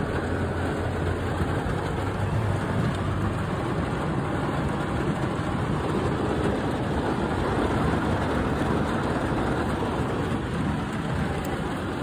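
Heavy rain beating steadily on a pickup truck's roof and windows, heard from inside the closed cab as an even hiss.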